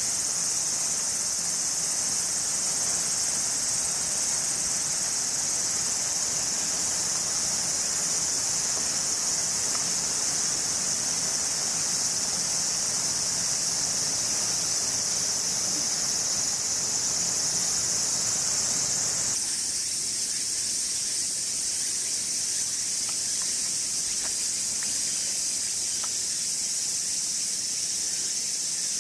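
Dense, steady chorus of insects, a continuous high-pitched hiss. The lower background noise beneath it drops away about two-thirds of the way through.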